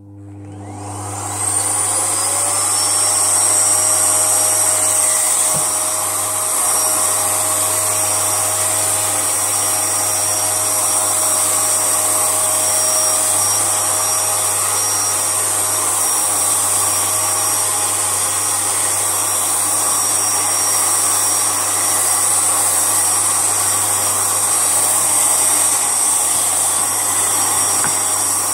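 Vacuum cleaner switched on, its motor whining up to speed over about two seconds, then running steadily during a quick sweep.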